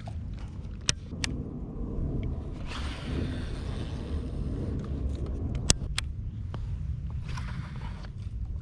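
Steady low rumble with a few sharp clicks and two short hissing rustles.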